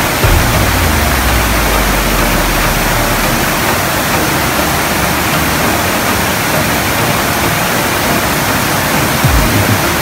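Stream water rushing and splashing over boulders in a rocky cascade: a steady, loud wash of noise. A low rumble sits under it for the first few seconds.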